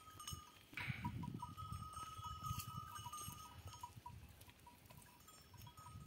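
Small livestock bells on a flock of goats and sheep clinking faintly and irregularly as the animals move, over a low rustle.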